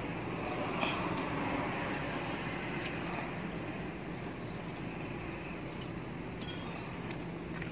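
A few light metallic clicks as headset spacers are lifted and handled on a bicycle's steerer tube, over a steady background rumble.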